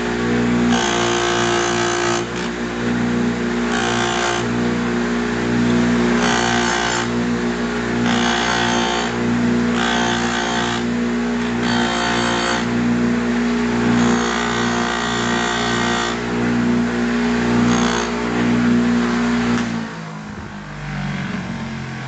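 Bench grinder motor running with a steady hum while a stainless steel percolator lid is pressed to its spinning wire wheel in repeated passes, each a harsh scratching burst of a second or so, brushing off brazing flux and discolouration. Near the end the hum drops away as the motor slows down.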